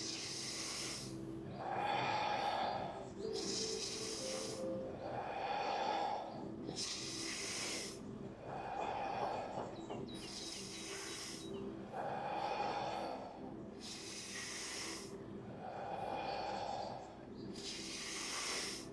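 A person doing deep, paced 'fire' breathing exercise breaths: a hissing breath alternates with a lower, softer whoosh. One full breath cycle comes about every three and a half seconds, five cycles in all.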